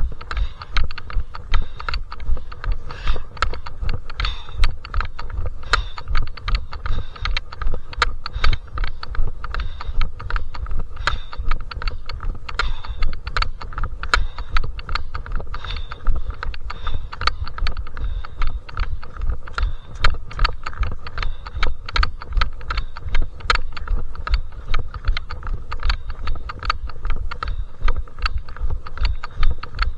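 Footsteps of a trail runner on a steep mountain climb: a quick, even run of steps over a steady low rumble.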